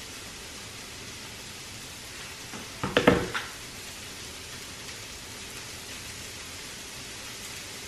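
Steady sizzle of ground turkey frying in a pan. About three seconds in, a short loud cluster of clicks and sipping as wine is drunk from a ceramic mug.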